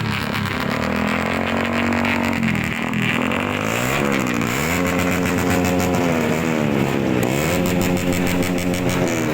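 Motorcycle engines with loud aftermarket exhausts being revved and held at high revs, the pitch dropping and climbing again several times.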